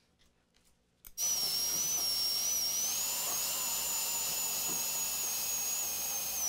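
Small handheld high-speed rotary drill whining steadily as it bores into the fractured edge of a turtle's shell. It starts with a click about a second in and holds a high, slightly wavering pitch.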